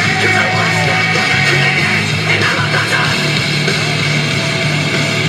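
Loud rock music with a heavy bass line moving between held notes.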